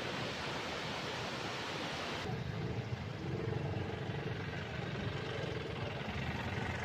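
Steady rushing hiss, then after an abrupt cut about two seconds in, a vehicle engine running with a low rumble.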